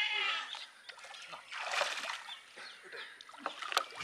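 Water splashing and sloshing irregularly as fishermen wade chest-deep beside a boat, working a net, with a sharp splash near the end. A wavering high-pitched animal call fades out in the first half second.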